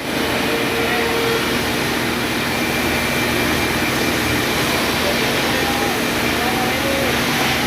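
Sawmill machinery running steadily, with faint voices in the background.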